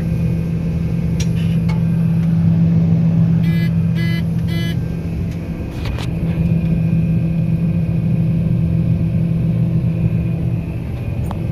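Combine harvester engine running steadily with a deep, even hum. About three and a half seconds in, three short electronic beeps sound in quick succession.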